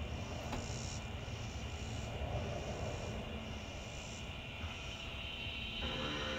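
Electric motor of a motorized ceiling TV mount running steadily as it lowers and tilts the TV down from the ceiling. Near the end the sound changes and music starts.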